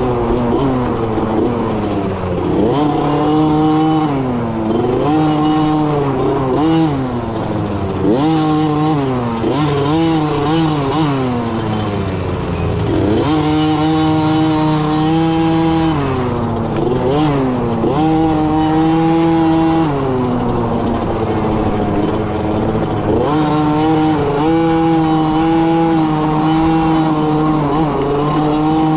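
Small youth dirt bike engine heard close up from on board, revving up and down over and over as the rider accelerates and backs off, with a few longer stretches held at a steady pitch.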